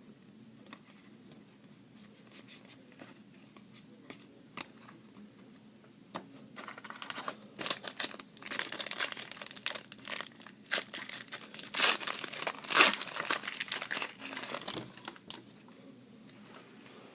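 Trading-card pack wrapper being torn open and crinkled by hand, starting about six and a half seconds in after a few light handling clicks, with the loudest tearing and crinkling a little past the middle.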